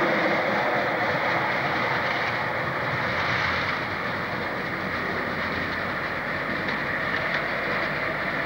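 Freight train of covered hopper wagons rolling past with a steady rumble and wheel clatter; the sound drops a little about four seconds in as the last wagon goes by and the train moves away.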